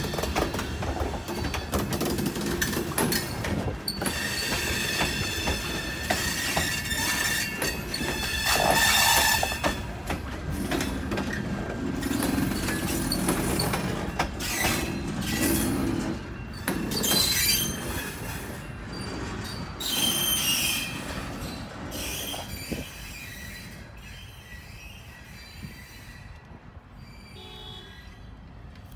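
Train cars rolling past, wheels squealing on the rails in high tones, with sharp clicks and knocks from the running gear. The sound dies away over the last several seconds as the train moves off.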